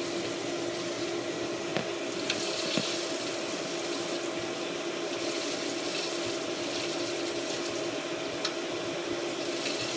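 Water running steadily through the reconnected, repaired heat exchanger manifold of a Hayward H350FDN pool heater during its leak test, a constant rushing with a steady hum underneath.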